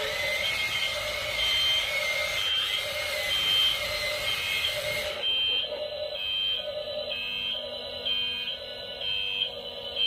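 Toy excavator's electronic sound effect: short two-tone warning beeps repeating about every three-quarters of a second. A steady high whine runs under the beeps and stops about halfway.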